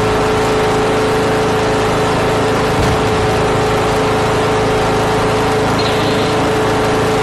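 Riding garden tractor's engine running steadily at an even speed as it drives, with a steady drone.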